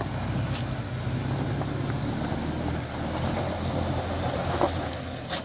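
2017 Toyota 4Runner TRD Off-Road's 4.0-litre V6 running steadily at low speed as it climbs a loose, slippery dirt slope in four-wheel-drive low under crawl control.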